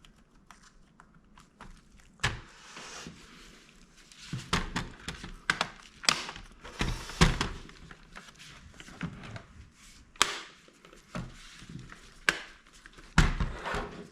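Plastic laptop case parts being handled and fitted together: irregular clicks, taps and knocks, with louder knocks about two seconds in, near the middle and near the end.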